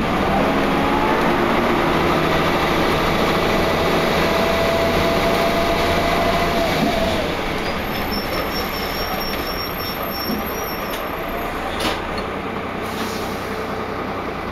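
Wright Cadet single-decker bus heard from inside while under way: a steady drive-train drone with a high whine over it that holds for several seconds and stops about seven seconds in, then a fainter rising whine and a single knock near the end. This whining is the kind of weird noise the uploader says this bus makes now and then, especially up hills, and takes as a sign that it is in poor condition.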